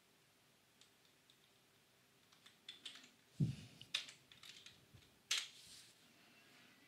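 Computer keyboard being typed on: a faint, scattered run of key clicks starting about two and a half seconds in, with a few louder key strikes.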